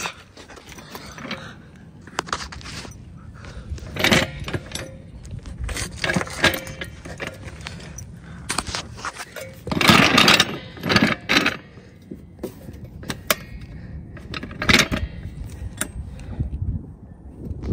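Metal hydraulic trolley jack being handled and set in place on asphalt: irregular clanking and rattling of its handle and frame, with scrapes and knocks, loudest about ten seconds in.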